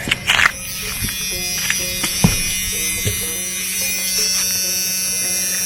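A steady electric buzz with a high hiss, a few sharp clicks near the start, and faint music behind it.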